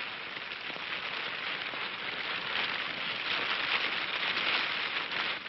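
Steady rain-like hiss with a fine crackle, growing louder in the second half and dropping away at the end.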